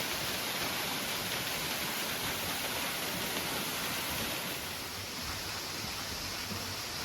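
Waterfall rushing with a steady, even hiss of falling water, easing off slightly about five seconds in.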